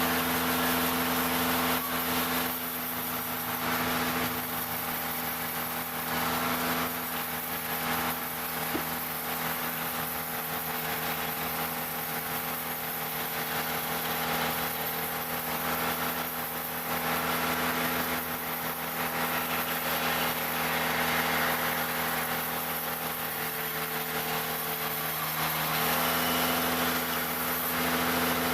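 Engine-driven wood-cutting sawmill running with a steady engine note; from about two and a half seconds in until near the end the note dips and a hissing noise rises as the saw cuts through jackfruit wood, then the steady running note returns.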